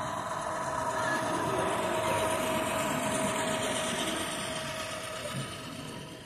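Model diesel locomotives passing close by with a steady whine, followed by the rolling of the container cars. The sound is loudest as the locomotives go by and fades as the cars follow.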